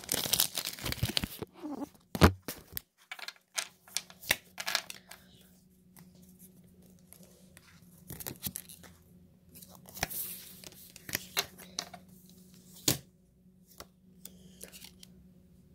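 Foil booster-pack wrapper crinkling and tearing open for the first second or so, then scattered sharp taps and slaps of trading cards being flipped and set down on a wooden table, the loudest about two seconds in and another near the end.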